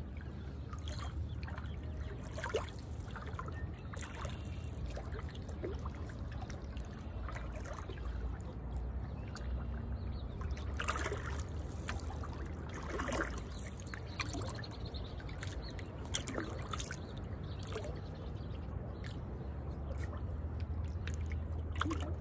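Water lapping and trickling against the side of a Northstar Northwind 16 canoe heeled over with its gunwale riding just above the surface. Small irregular splashes come every second or so over a low steady rumble.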